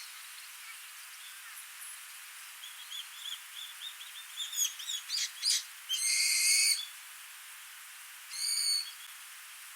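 Wild birds calling over the steady rush of a small stream: a run of quick chirps, then two louder buzzy calls about six and eight and a half seconds in.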